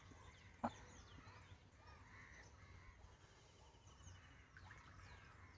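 Faint bird calls over quiet surroundings, with one short crow caw a little over half a second in and a thin rapid trill near the middle.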